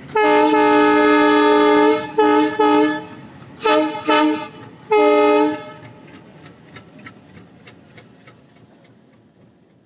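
ALCO diesel locomotive air horn sounding one long blast, then two short, two short and one longer blast. Faint rhythmic wheel clicks over rail joints follow as the locomotive moves away.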